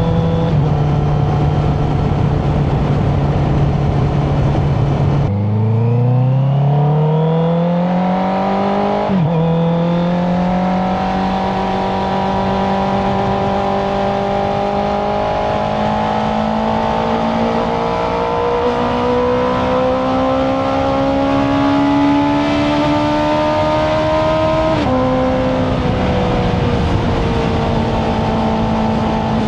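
Honda CBR650R's inline-four engine through an Akrapovic Racing Line titanium exhaust, heard while riding. It holds a steady note, then about five seconds in the pitch drops and climbs quickly as the bike accelerates, breaks briefly near nine seconds at a gear change, rises slowly for a long stretch, and drops again near the end at another shift before running steadily.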